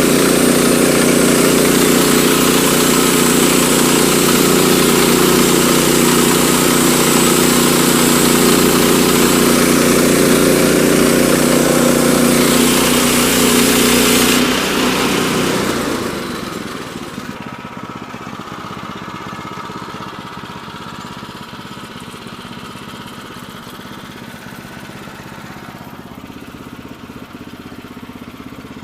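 Woodland Mills HM122 sawmill's gasoline engine running steadily while it warms up. About halfway through the sound drops sharply to a much quieter, duller running.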